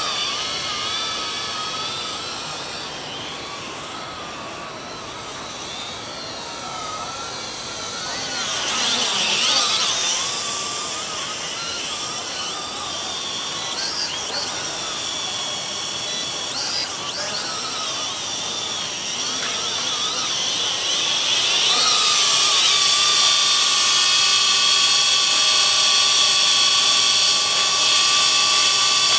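XK X300 quadcopter's electric motors and propellers whining, the pitch wandering up and down as it flies about. In the last third it grows louder and holds a steady pitch as the drone hovers close by.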